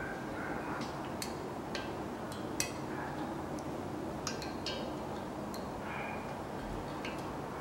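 Scattered light metallic clicks and clinks, about eight in all, as engine main bearing shells are handled and seated in the block and caps, over steady room noise.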